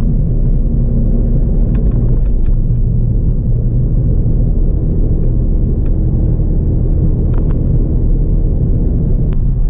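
Steady low rumble of a car driving at road speed, engine and tyre noise heard from inside the cabin, with a few faint clicks.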